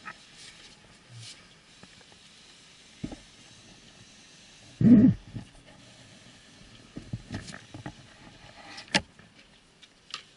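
Scattered clicks and knocks of things being handled inside a stopped car with the engine not running, with one dull thump about five seconds in and a sharp click near the end.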